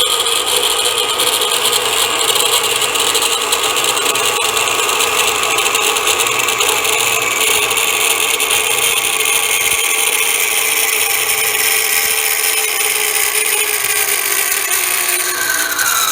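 Harbor Freight band saw running at steady speed on its first test cut, with a whirring motor and blade. Near the end one tone slides down in pitch as the saw starts to wind down.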